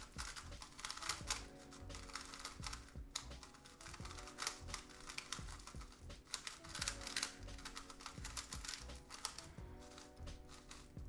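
Qiyi X-Man Tornado V2M 3x3 magnetic speed cube being turned by hand on its out-of-the-box settings: runs of rapid plastic clicks, smooth and quiet. Soft background music with held notes plays underneath.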